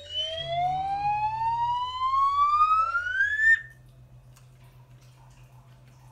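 A whistle-like sound effect gliding steadily upward in pitch, cutting off suddenly about three and a half seconds in. After it only a faint low hum remains.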